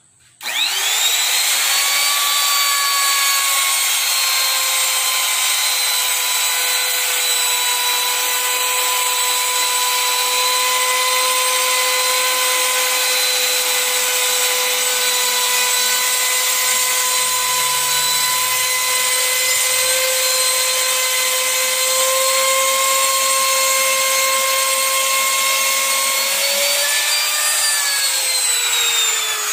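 Compact electric trim router with a bearing-guided bit switched on and running at a steady high whine while trimming the overhanging Formica laminate flush with the table edge. Near the end it is switched off and the whine falls in pitch as the motor winds down.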